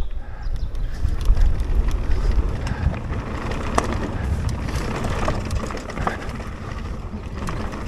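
Electric mountain bike riding over a dirt trail: wind buffeting the camera microphone with a steady rumble of tyres and bike, and a few sharp clicks and rattles from about four to six seconds in.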